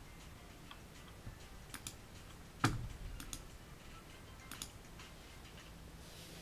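Scattered computer mouse and keyboard clicks, about seven in all, the loudest a sharper click with a dull knock about two and a half seconds in.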